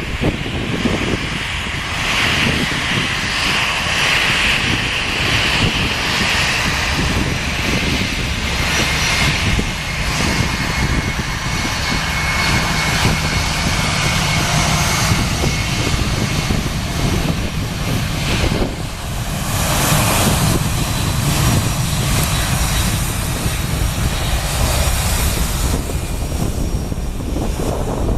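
Boeing 767-200 freighter's twin turbofan engines on departure: a loud, steady jet engine noise with a faint thin whine.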